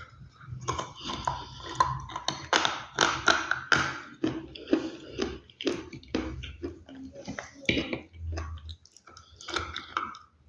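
Brittle, earthy chunks being bitten and crunched in the mouth: a quick, irregular run of sharp crunches with short pauses between them.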